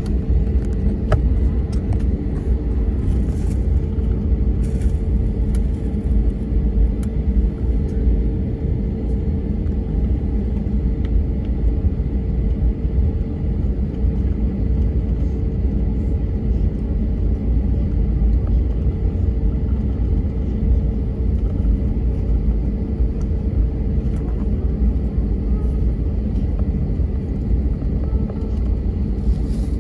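Airbus A321LR cabin noise heard from a window seat while the airliner is on the ground: a steady low rumble with one constant hum above it, engines at idle as it taxis.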